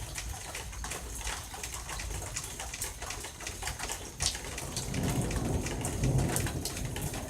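Steady rain falling with scattered drips, and distant thunder rumbling low, swelling about five seconds in.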